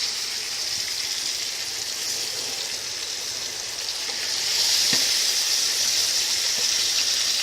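Washed thin rice sizzling as it goes into hot ghee and coconut oil in a cooking pot, a steady frying hiss that grows louder about halfway through.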